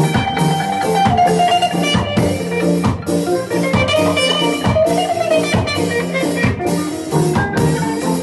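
Band jamming a reggae/ska groove: electric guitar playing a melodic lead line over a drum kit keeping a steady beat.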